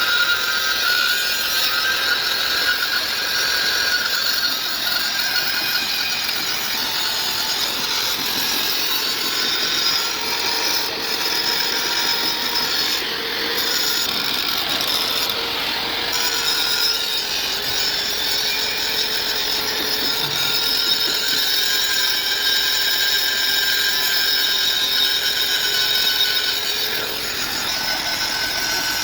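A machine running steadily, a continuous mechanical noise with a high whine through it.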